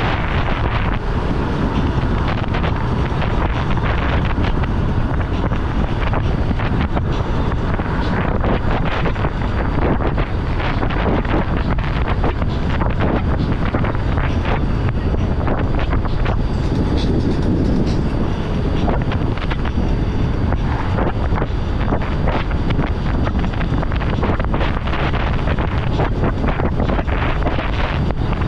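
Heavy wind buffeting the microphone of a camera riding on a moving electric scooter: a steady, loud rumble broken by constant irregular gusts.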